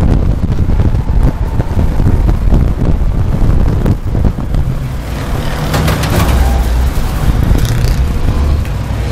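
Mad Bomber class race car's engine running under power, heard loud from inside the cockpit, with wind buffeting the microphone and many rattles and knocks from the car's body.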